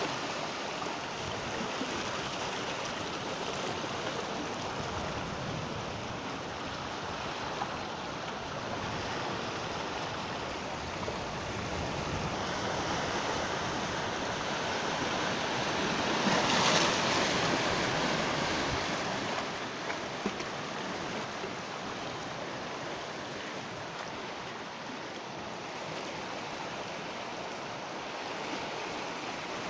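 Sea waves breaking and washing on the shore in a steady surf wash, with one louder wave crashing about halfway through.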